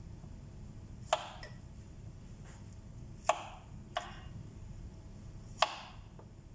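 Kitchen knife cutting broccoli florets off the head and knocking down onto a plastic cutting board: four sharp knocks at irregular intervals.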